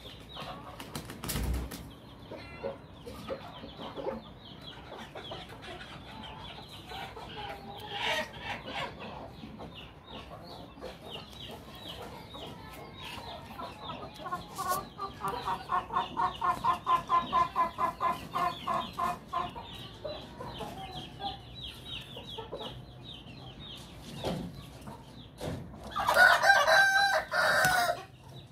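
Aseel chickens clucking, with a long run of quick, evenly spaced clucks, about five a second, midway through. A rooster crows loudly for about two seconds near the end.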